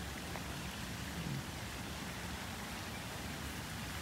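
Steady outdoor background hiss with an uneven low rumble and no distinct event.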